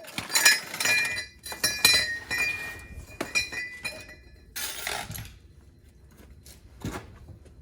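Metal exhaust pipes clanking and clinking together as they are wrestled into place, with a ringing metallic tone during the first three seconds. Then comes a short scraping rush and a single knock near the end.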